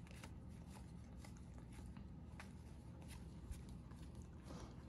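Faint handling of baseball trading cards and pack wrappers: light scattered clicks and rustles, with one slightly sharper click about three and a half seconds in, over a low steady room hum.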